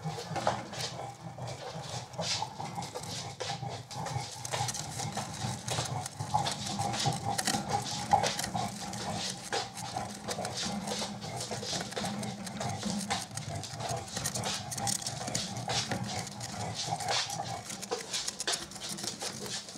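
A gerbil gnawing and scratching at a cardboard snack tube: a rapid, irregular run of small clicks and scrapes.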